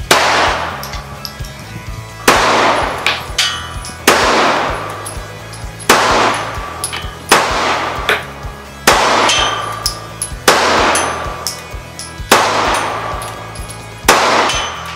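Semi-automatic pistol fired slowly, about nine single shots spaced a second and a half to two seconds apart, each ringing out in a long echo. Background music plays underneath.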